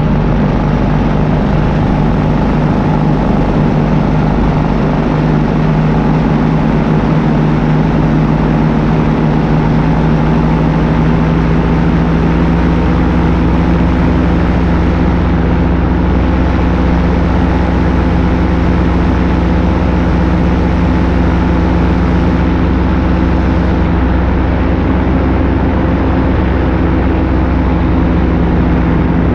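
Paramotor engine and propeller running at a steady cruise power in flight, a constant drone with a deeper rumble that thickens about twelve seconds in.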